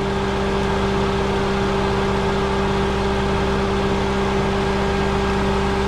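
Daihatsu Copen's twin-cam 16-valve engine idling steadily with the air-conditioning compressor switched on, a constant hum with a few steady tones over it.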